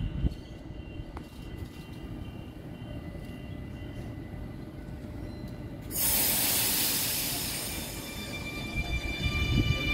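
Sydney Trains double-deck electric train at a platform: two thumps at the start, then a low steady hum. About six seconds in, a sudden loud hiss of air starts, followed by the electric traction whine, whose tones rise in pitch near the end as the train begins to pull away.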